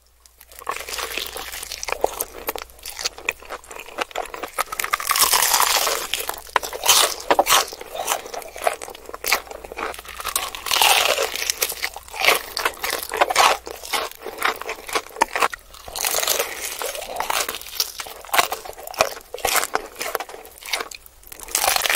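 Close-miked biting and chewing of crispy deep-fried chicken drumsticks: dense, crackling crunches of the breaded coating with each bite and chew.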